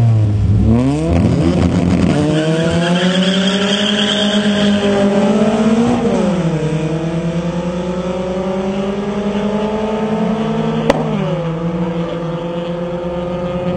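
Two drag racing cars launching and accelerating hard down a quarter-mile strip. The engine note climbs, drops at a gear change about six seconds in and again near eleven seconds, then climbs once more, with a single sharp click just before the second shift.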